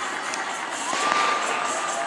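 Crowd cheering and shouting, with a whistle that rises and then holds about a second in.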